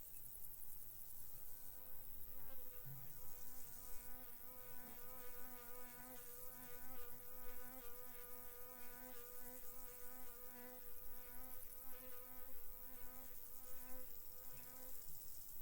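A flying insect buzzing close by with a steady, slightly wavering hum. It comes in about two seconds in and fades away near the end. Behind it is a constant high chirring of field insects.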